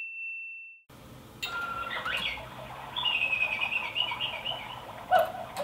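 A chime's last high note fades out, then small birds chirp: a few short calls and upward glides, then a thin wavering twitter lasting a second or two. A sharp click comes near the end.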